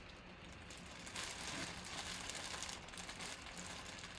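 Clear plastic poly bag crinkling and rustling irregularly as hands grip and turn a bagged jersey, fairly faint.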